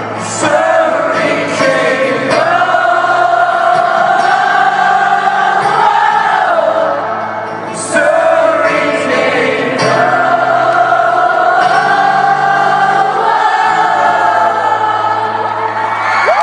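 Live rock concert music with many voices singing long held notes together over steady low keyboard and bass notes, heard through a phone's microphone in the audience. There is a brief dip about seven seconds in.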